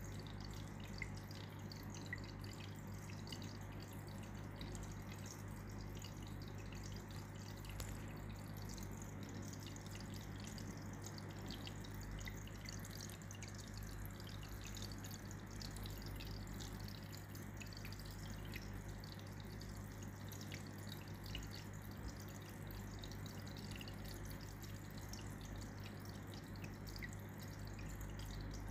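Hang-on-back aquarium filter running, its outflow spilling into the tank in a steady trickle with small drips and splashes, over a low steady hum.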